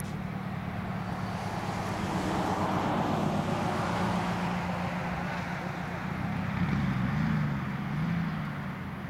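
A motor vehicle going by: a steady rushing noise with a low engine hum that grows louder through the middle and fades near the end.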